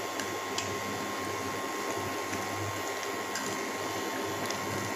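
Pot of prawn soup bubbling at a rolling boil over the steady hum of an electric cooktop, with a few faint clicks as a ladle stirs it.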